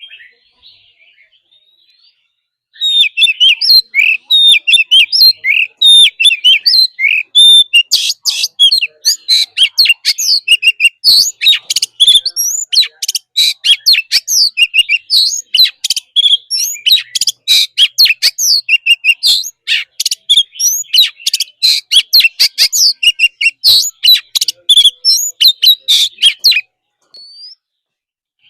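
Oriental magpie-robin singing a long, fast, intense song of varied whistled notes mixed with rapid harsh clicking notes. It starts about three seconds in and breaks off abruptly a couple of seconds before the end.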